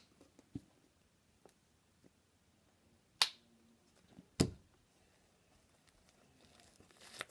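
A few sharp clicks and a knock from handling a plastic lotion bottle, then faint squishing as fluffy slime is kneaded with the lotion near the end.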